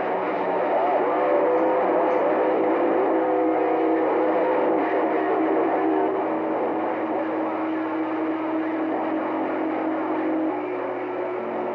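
CB radio receiver audio with no one talking: static hiss with several steady whistling tones and a few gliding squeals in the first few seconds. A couple of the steady tones shift pitch near the end.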